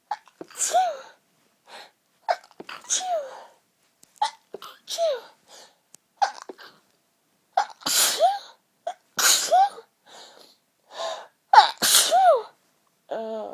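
A woman's sneezing fit: about six sneezes in a row, each a sharp catch of breath followed by a voiced sneeze that falls in pitch.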